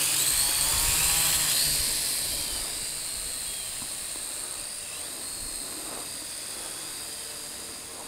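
Ares Ethos QX130 quadcopter's small electric motors and propellers whining as it lifts off from the hand and climbs away. The whine is loudest at launch and fades over the first few seconds as the quadcopter gains height, then holds steady and faint.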